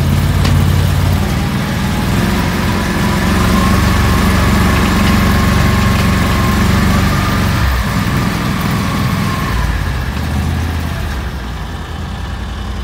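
Argo Frontier 600 6x6 amphibious ATV's engine running as the machine drives across grass, with a thin steady high whine over it through the middle. The engine note changes about eight seconds in.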